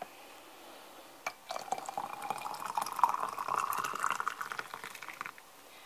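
Boiling water poured in a stream into a one-litre glass jar, the pitch of the pour rising steadily as the jar fills. A small clink comes just before the pour starts, and the pour stops shortly before the end.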